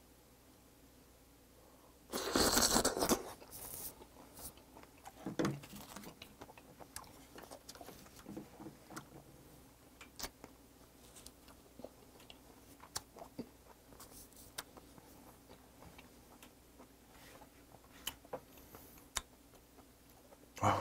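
A raw river oyster being eaten: one loud wet slurp about two seconds in as it goes into the mouth, then soft, scattered wet clicks of slow chewing.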